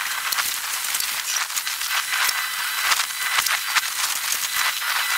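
Water hose spraying onto demolition rubble: a steady hiss with crackling spatter as the jet hits broken wood, shingles and brick.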